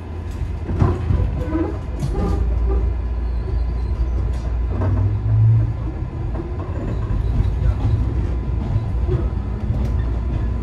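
A JR 103 series commuter electric train running at speed, heard from inside the car: a steady low rumble with occasional sharp knocks as the wheels cross rail joints, and a swell in the rumble about halfway through.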